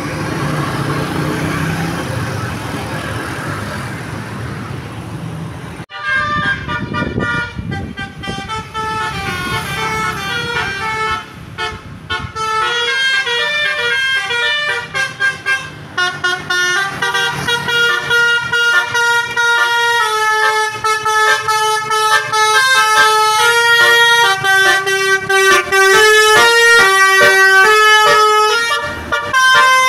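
For the first few seconds, noisy street sound with voices; then, after a sudden cut, a Basuri multi-tone 'telolet' bus horn plays a quick tune, several tones sounding together and stepping up and down in pitch, getting louder toward the end.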